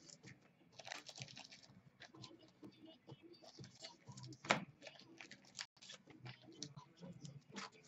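Faint crinkling and rustling as a trading card pack's wrapper and the cards inside are handled, with many light clicks and one sharper tap about four and a half seconds in.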